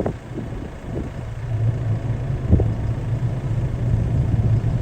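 Engine of a farm vehicle running steadily, heard from inside its cab while driving across the fields, with a couple of short knocks and rattles, one near the start and one about two and a half seconds in.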